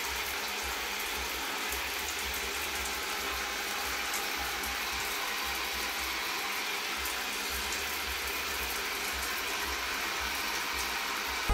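Shower water running and spattering onto a tiled floor, a steady hiss.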